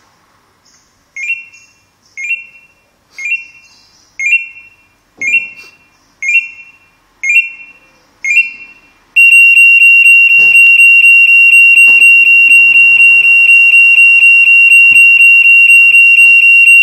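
Dräger dead-man alarm on a firefighter's breathing apparatus going off: eight short warning beeps about once a second, then from about nine seconds in a continuous loud, shrill alarm tone. This is the alarm a motionless wearer sets off, the warning beeps first and then the full alarm.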